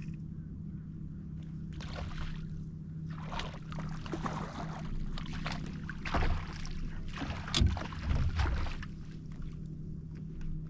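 Water splashing and knocking around a kayak, in irregular bursts for several seconds, with a few louder thumps about six to eight seconds in. A steady low hum runs underneath.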